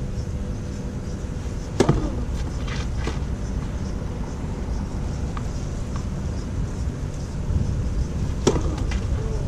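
Tennis racket striking the ball on a serve, twice, about six and a half seconds apart, each a sharp crack with a short ring. A few fainter knocks follow shortly after the first, all over a steady low rumble.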